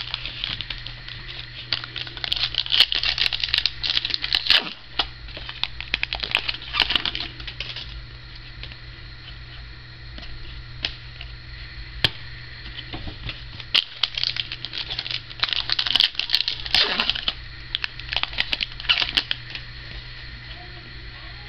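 Trading card packs and cards being handled: crinkly rustling with sharp clicks in two stretches, one early and one past the middle, over a steady low hum.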